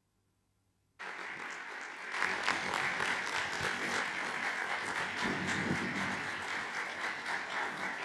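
Audience applauding, starting suddenly about a second in and filling out into full, steady clapping a second later.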